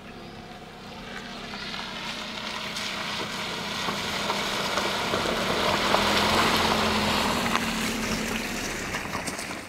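A small Nissan hatchback driving slowly through a wide muddy puddle, its engine running and its tyres splashing through the water. The sound grows louder as the car comes closer and is loudest about six seconds in.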